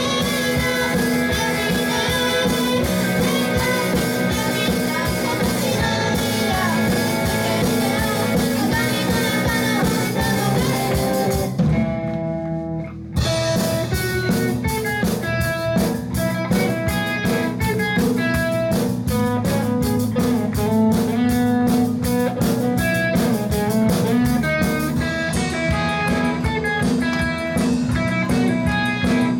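Live band music: guitar over a drum kit with a steady beat. About twelve seconds in, the band drops to a few held notes for a moment, then comes back in.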